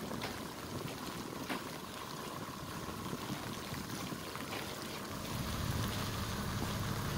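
Steady rushing background noise, like wind on the microphone, with a low vehicle engine hum that grows louder about five seconds in.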